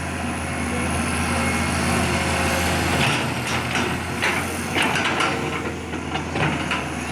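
Excavator engine running steadily, with a series of short knocks and clanks in the middle stretch.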